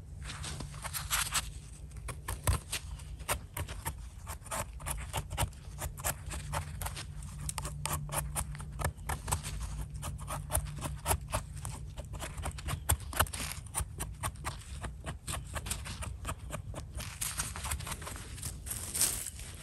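A small knife blade scraping soil and debris off the stem of a freshly picked bolete mushroom, in many short strokes in quick succession.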